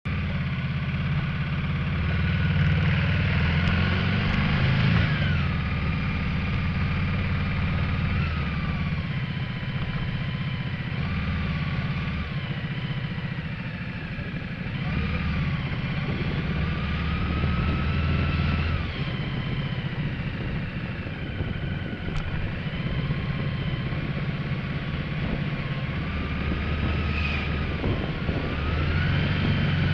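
On-board sound of a Ducati Multistrada 1200S's L-twin engine riding at low to moderate speed, its revs repeatedly rising and falling through gear changes over a steady low rumble and road noise.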